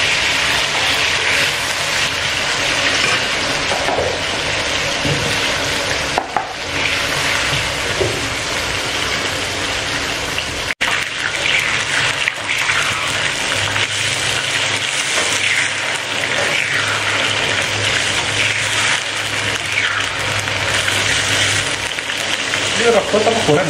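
Cubed eggplant sizzling as it fries in oil in a wok, stirred with a metal spatula that scrapes the pan now and then. A low hum joins in the second half.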